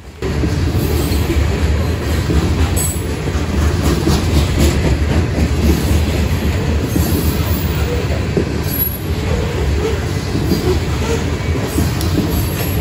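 Loaded BNSF grain train of covered hopper cars passing close by: a steady, loud rumble of steel wheels on rail, with occasional faint clicks.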